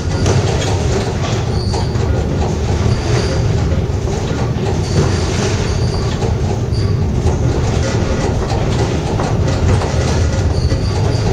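Funicular car running along its rails: a steady rumble of wheels on track, with short high-pitched wheel squeals every few seconds.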